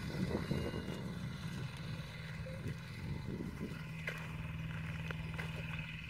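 Tractor engine running steadily, a low even hum, partly covered by irregular rustling for the first half.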